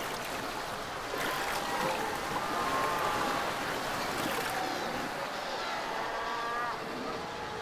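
Surf breaking and washing over rocks in a steady rush, with faint drawn-out, wavering calls from the Cape fur seal colony mixed in.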